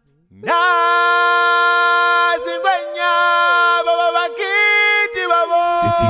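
Music: an unaccompanied sung chant that starts abruptly about half a second in with one long held note, then steps through a few more held notes.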